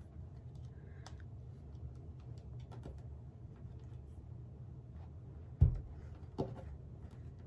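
Hands pressing a plastic embroidery hoop down into a plush toy on a wooden table: faint scattered clicks and handling noise, with one dull thump about five and a half seconds in and a smaller knock just after.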